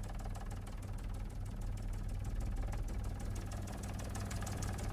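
News helicopter's engine and rotor noise heard from aboard: a steady low drone with a fast, even chop.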